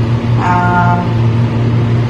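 A steady low hum, like an appliance or fan motor running. About half a second in comes a short held pitched tone with a flat pitch, lasting well under a second.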